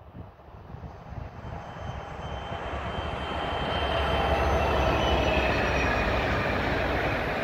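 A convoy of DB class 232 'Ludmilla' diesel locomotives approaching and passing close by. The diesel engines get steadily louder over the first four seconds, then stay loud, with a low rumble and a steady whine.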